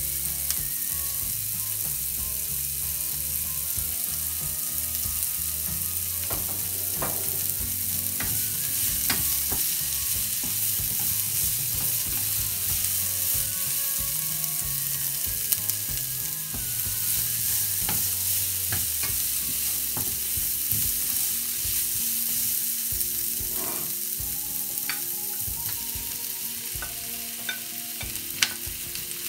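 Sliced bell peppers and onions sizzling in a frying pan, with a wooden spatula scraping and tapping against the pan as they are stirred. Near the end, sliced mushrooms are tipped into the pan from a plate, with a sharp tap.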